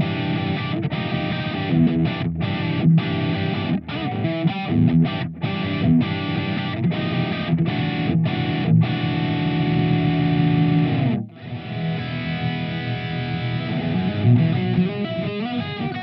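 SQOE SETL450 electric guitar with twin Alnico humbuckers, played with distortion: chords broken by short stops, then a long held chord that is cut off sharply about eleven seconds in, followed by more riffing.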